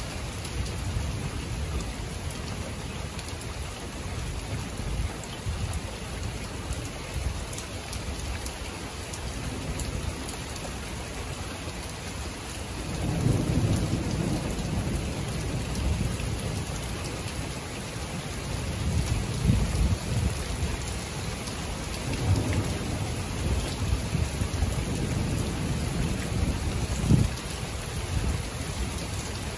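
Thunderstorm: steady rain falling, with thunder rumbling low in long rolling swells. The first swell comes a little under halfway through and more follow in the last third, with a brief sharp thump near the end.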